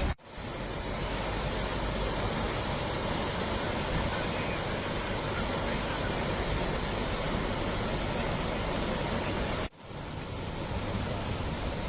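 Floodwater rushing steadily past a broken road, an even roar of water that cuts out briefly about ten seconds in.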